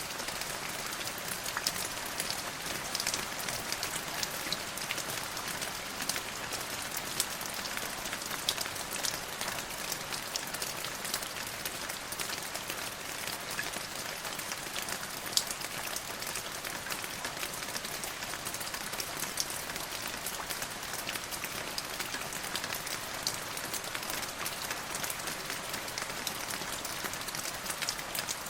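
Steady rain falling on a surface, an even hiss with many separate drops ticking through it.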